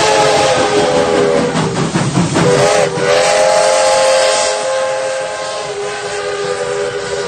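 Steam whistle of Baldwin-built 4-6-2 Pacific locomotive #425, held long with several tones sounding together over steam hiss. The pitch dips about two to three seconds in as the locomotive passes, and the whistle carries on slightly lower and a little quieter afterwards.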